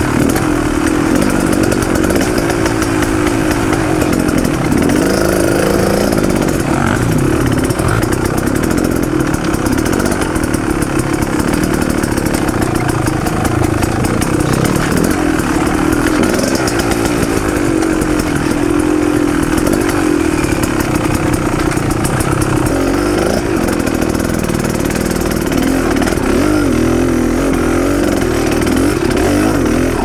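Dirt bike engine running on a rough trail, its revs rising and falling constantly as the throttle is worked.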